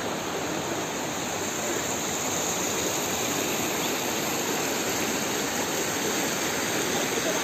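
A river rushing over rocks: a steady, even rush of water.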